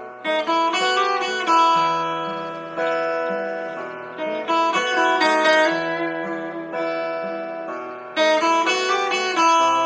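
Music: plucked or strummed string chords, a new chord struck every second or so and each left to ring out and fade.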